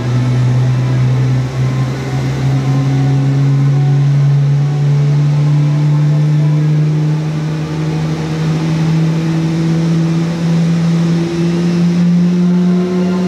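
GE90 turbofan of a Boeing 777-300ER spooling up during engine start: a loud whine that rises slowly and steadily in pitch.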